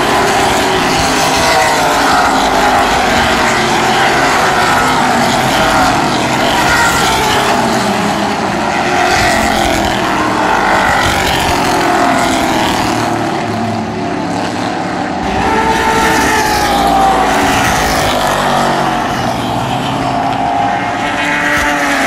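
Vintage racing car engines at high revs as cars pass one after another, among them a Corvette Sting Ray's V8. Their engine notes rise and fall continuously.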